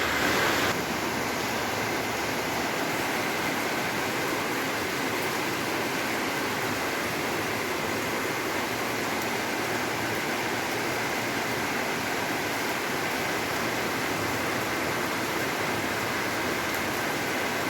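First monsoon rain falling steadily, an even hiss of rainfall, a little louder in the first second.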